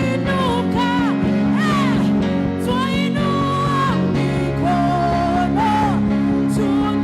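Live gospel worship music: a voice singing a gliding melody over sustained chords from the band.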